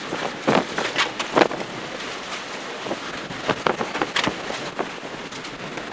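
Hurricane-force wind and rain battering a car from outside, heard from inside the cabin. Repeated sharp hits against the body and glass are loudest in the first second and a half, with more around the fourth second.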